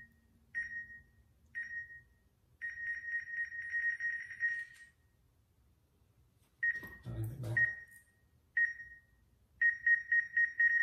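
Countdown beeps from the timer of a smartphone mounted on a DJI OM 5 gimbal, taking a timed panorama shot: single high beeps about a second apart, then a fast run of beeps just before the photo is taken, twice over. A few sharp clicks come between the two countdowns, about two-thirds in.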